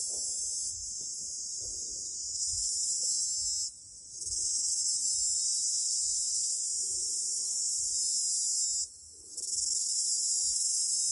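A group of cicadas calling together in a loud, dense, high-pitched buzz. The chorus drops away briefly twice, about four and nine seconds in, and rises again each time.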